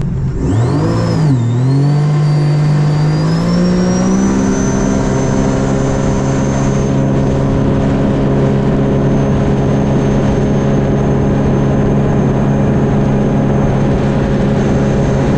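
2021 Sea-Doo RXT-X personal watercraft engine at wide-open throttle. Its pitch dips and recovers in the first second or so, climbs over the next few seconds, then holds steady at top speed, about 78 mph. A thin high whine holds steady along with it.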